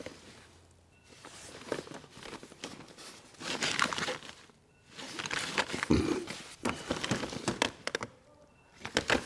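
Rummaging through things on a cluttered workbench: irregular rustling and crinkling with scattered clicks and light knocks as items are moved, coming in several spells with short lulls between them.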